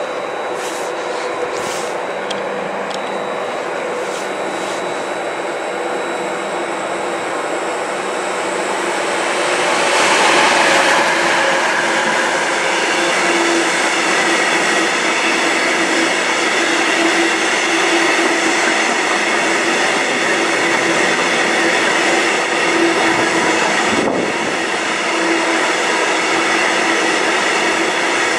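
Electric multiple unit standing at the platform with its onboard equipment running: a steady hum and whine that holds throughout, with a louder rush of noise swelling about ten seconds in.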